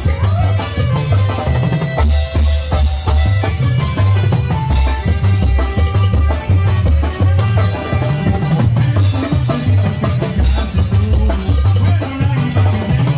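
Live regional Mexican band playing a cumbia: a saxophone and keyboard melody over a drum kit keeping a steady bass drum and snare beat.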